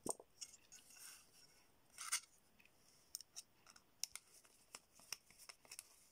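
Faint scattered clicks and scratchy scrapes of a small screwdriver turning tiny screws into a small electronics case as the parts are handled, with one louder scrape about two seconds in.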